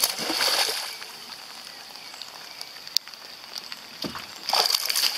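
A hooked pike leaps clear of the lake and splashes back down in the first second, then more splashing about four and a half seconds in as it thrashes at the surface, over a steady hiss.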